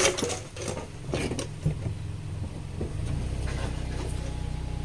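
A few knocks and clunks, then about three seconds in a steady low engine hum starts and keeps running evenly.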